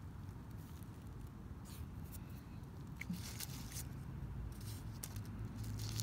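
Gloved hands rustling and scraping in loose garden soil while setting tulip bulbs into a bed, in a few short scratchy bursts over a low steady rumble.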